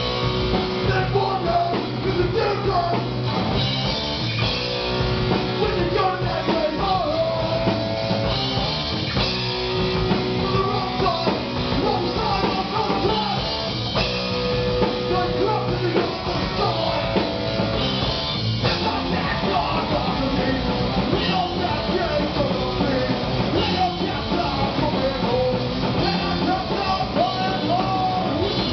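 A rock band playing live and loud: electric guitar and drum kit, with a singer singing into a microphone.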